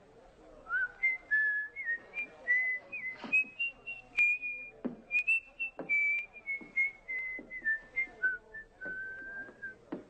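A man whistling a slow tune, a single line of notes that climbs and then drifts back down, with scattered footsteps.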